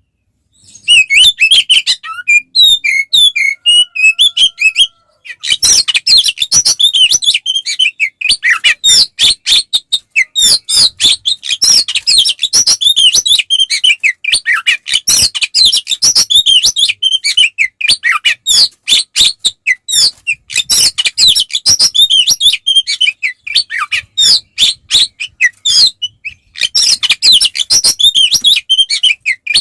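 Oriental magpie-robin (kacer) in full song: a fast, nearly unbroken stream of varied high whistles, trills and chattering notes, with a short pause near the start and another around five seconds in.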